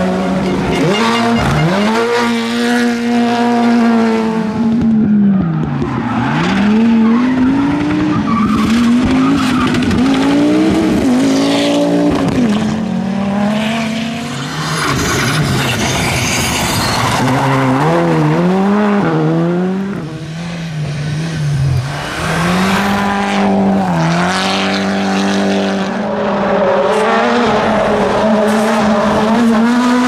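Rally cars driven flat out, one after another: engines revving high and dropping again with each gear change and lift, over and over, with tyres skidding on the loose surface.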